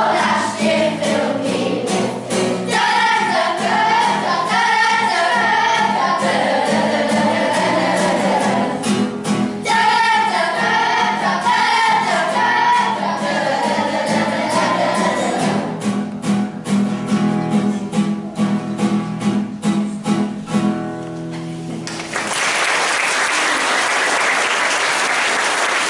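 A group of primary-school children singing together with instrumental accompaniment; the song closes on a held chord, and near the end an audience breaks into applause.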